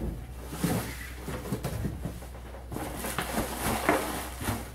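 Light handling noises: scattered small clicks, taps and rustles.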